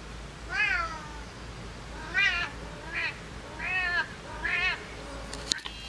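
Domestic cat meowing five times in short calls, each rising and falling in pitch, with a sharp click near the end.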